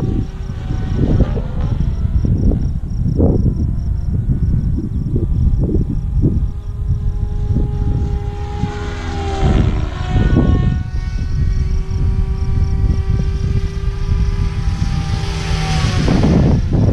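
Electric RC helicopter (SAB Kraken 580, 560 kV motor, 603 mm main blades) flying sport manoeuvres overhead: a motor-and-rotor whine drifting in pitch as it moves, with the blade swish swelling loudest about nine seconds in and again near the end. Gusty wind rumbles on the microphone throughout.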